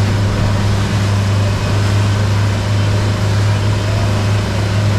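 Boat engine running steadily at low speed, a deep even hum over a constant rush of noise.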